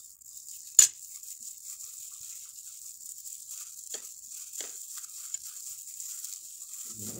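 Close-miked eating of fried tilapia over a steady hiss: one sharp click about a second in, then a few faint clicks as the fish is chewed and picked apart by hand, and a short low voice sound near the end.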